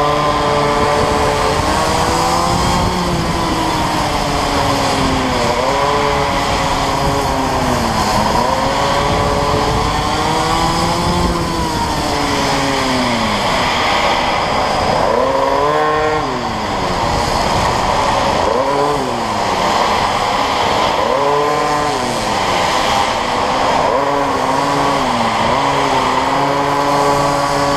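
A go-kart driven hard around a track. Its motor note climbs in pitch along each straight and drops sharply into each corner, again and again.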